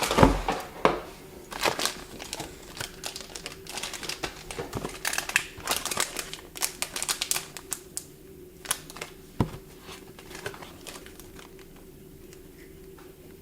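Product packaging being handled: plastic and cardboard crinkling and rustling with many small clicks and taps, busiest over the first eight seconds or so, with a single knock about nine seconds in, then tailing off.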